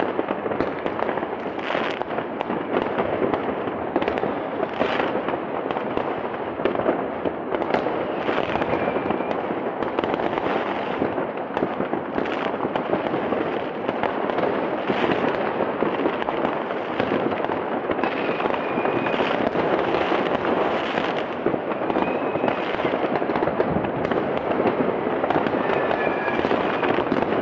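Dense, unbroken barrage of fireworks rockets and firecrackers going off all around: constant crackling and popping, cut through by frequent sharper bangs and a few short whistles.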